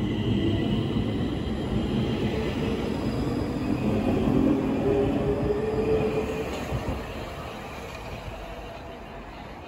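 Stockholm metro C20 train pulling away from the platform: a loud rail rumble with a motor whine rising in pitch as it accelerates, fading from about seven seconds in as the train recedes.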